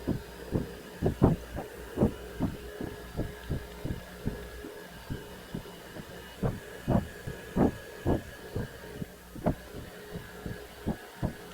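Milling machine running with a steady hum while counterboring holes in a metal plate, with a string of dull, irregularly spaced knocks, about two a second.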